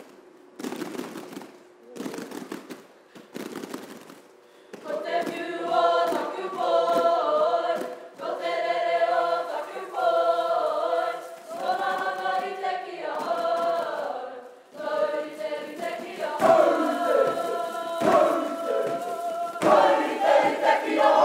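Kapa haka poi: sharp, rhythmic poi strikes for the first few seconds, then the group of women and men sings together over the poi rhythm from about five seconds in.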